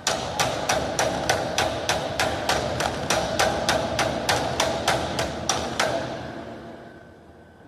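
Rapid, regular hammer blows, about four a second, each leaving a ringing tail. The blows stop about six seconds in and the ring dies away.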